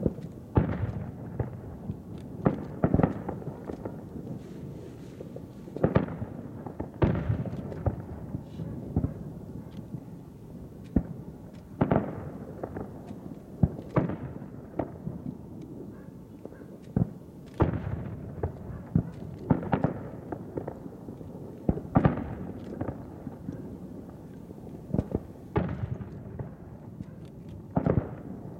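Aerial fireworks shells bursting in the sky: a dozen or so sharp booms at irregular gaps of about one to four seconds, some in quick pairs.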